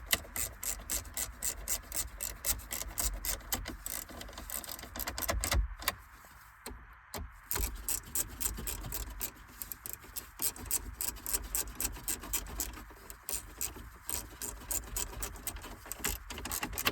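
Hand ratchet clicking rapidly, about five clicks a second, as it runs down the 7mm bolts that hold a car radio head unit in the dash, with a short pause about six seconds in before it goes on.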